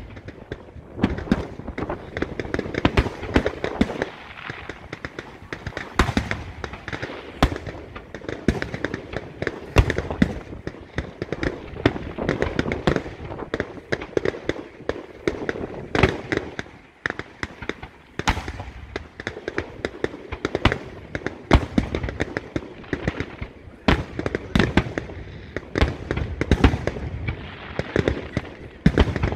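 Fireworks display: aerial shells bursting in rapid succession, a dense run of sharp bangs and crackle with a short lull a little past halfway.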